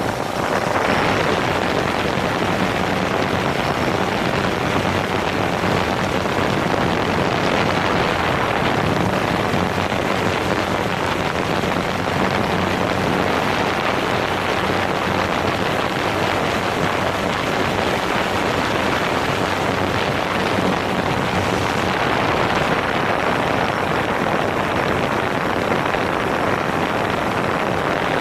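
DJI Phantom 4 quadcopter in flight, heard from a camera mounted on the drone itself: its four propellers and motors make a steady, loud whir with a faint low hum, mixed with wind rushing over the microphone.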